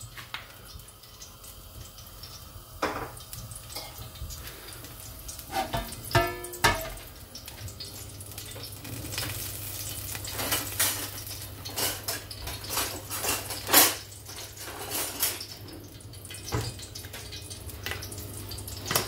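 A measuring spoon clinks against a large aluminium pot a few times, then oil heating in the pot over a gas burner crackles and spits in many short pops as it gets hot, with a steady low hum underneath.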